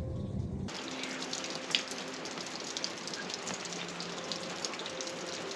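Steady rain falling: a dense even hiss sprinkled with drop ticks, with one sharper tick just under two seconds in. Music plays briefly at the start and cuts off under a second in.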